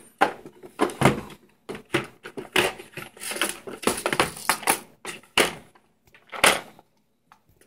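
Plastic Plano tackle box being handled: its cantilever trays swung open and small clear plastic lure boxes lifted out and set down, making a quick run of plastic clicks, clatters and knocks with lures rattling inside. The handling stops about seven seconds in.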